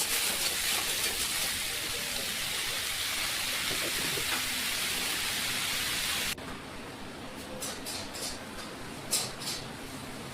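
A steady hiss that cuts off suddenly about six seconds in, followed by a few light clinks.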